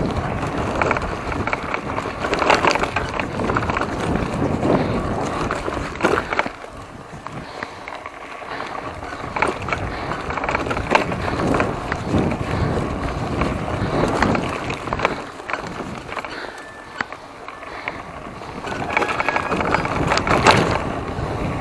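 Giant Talon 3 hardtail mountain bike ridden over a rough trail: tyre noise on dirt with frequent knocks and rattles from the bike. The noise eases for a couple of seconds twice.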